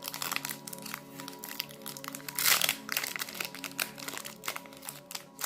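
Trading card booster pack wrapper crinkling and crackling in the hands, a dense run of crackles that is loudest about two and a half seconds in. Steady background music plays underneath.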